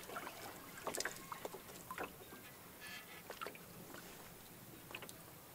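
Canoe being paddled through calm water: quiet paddle strokes with drips, and scattered light knocks and clicks.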